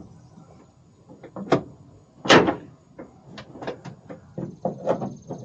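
Scattered clicks and knocks of metal parts being handled at a pickup's tailgate and its newly fitted assist shock, with one louder clunk a little over two seconds in.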